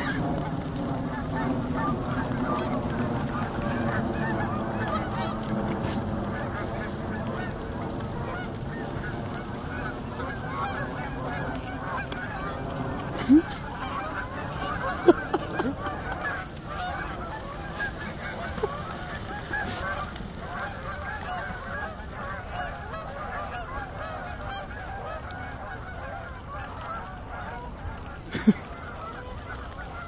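A large flock of Canada geese honking together, many overlapping calls, as the flock is flushed and takes off; the chorus grows slowly fainter. A few brief, sharp louder sounds stand out over it.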